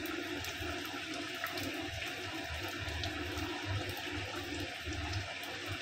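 Spiced gravy boiling in a kadai around fried koi fish: a steady bubbling fizz with small pops.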